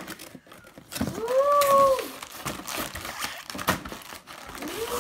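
A cardboard toy kit box being opened and its contents handled, with scattered rustles and clicks and one sharper click near the end. About a second in, a child hums a single note that rises and falls, the loudest sound here.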